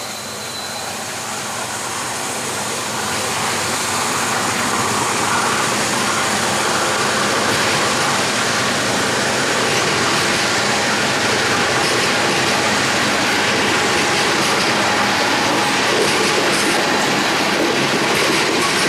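Freight train of steel coal gondola cars rolling past: a steady rumble and clatter of wheels on the rails, building over the first few seconds and then holding even.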